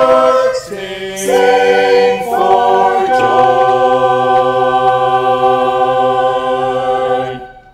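Mixed men's and women's church choir singing a cappella, moving through a few chord changes, then holding one long final chord from about three seconds in that cuts off near the end.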